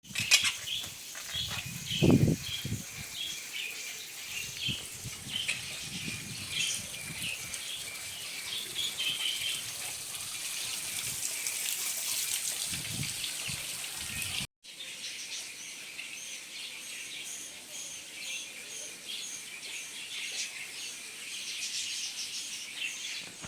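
Many small birds chirping and chattering together in a dense chorus, with a low bump about two seconds in. The sound cuts out for an instant about two-thirds of the way through, then the chirping carries on.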